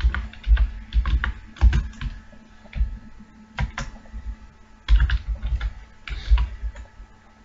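Typing on a computer keyboard: irregular key clicks in quick runs with short pauses between.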